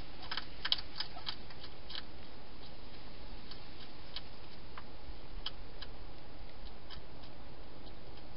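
Wild hedgehog crunching dry food: a quick run of crisp clicks in the first two seconds, then scattered single clicks, over a steady hiss.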